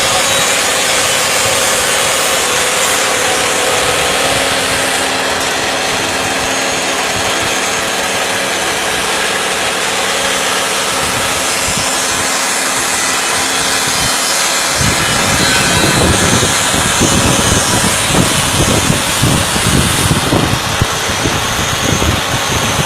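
Abon (meat floss) shredding machine running, a steady motor hum with a grinding, rubbing noise. About fifteen seconds in, it turns louder and becomes an uneven low rumble.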